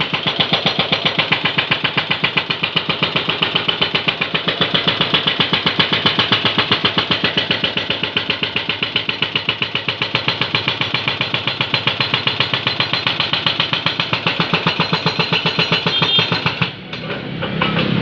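Hydraulic breaker on a Jonyang JY623E excavator hammering in fast, even blows, about ten a second. The hammering stops near the end, leaving the excavator's engine running.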